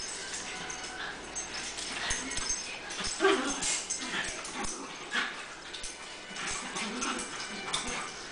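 Two Cairn terriers playing together: short, irregular dog play noises mixed with scuffling and claws clicking on a tile floor, loudest about three seconds in.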